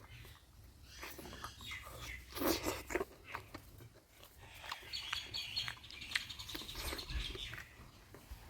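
A person eating mutton curry by mouth close to the microphone: irregular wet chewing, lip smacks and small sucking clicks, with a busier, louder run of smacks about two and a half to three seconds in.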